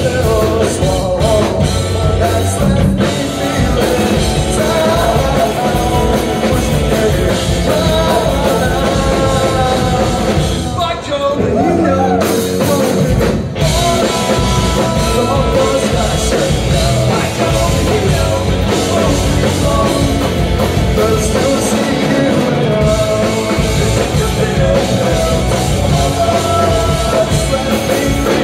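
Live rock band playing with electric guitars, bass guitar and a drum kit, with sung vocals over it. About halfway through there is a short break where the bottom end drops away for a moment before the full band comes back in.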